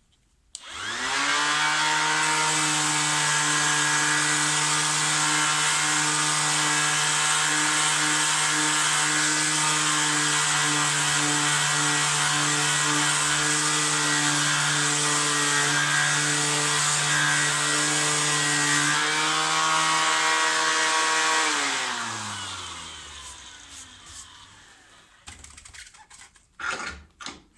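Ozito 18V cordless random orbital sander on its top speed setting (speed 6), sanding wood with 80-grit paper: it spins up quickly about half a second in and runs steadily, a motor hum under a loud sanding hiss. The hiss stops a few seconds before the end, and the motor is then switched off and winds down with a falling pitch.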